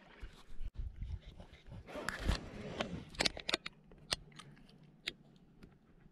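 Action camera being handled and repositioned on an inflatable tube: rubbing and scraping, then a run of sharp clicks.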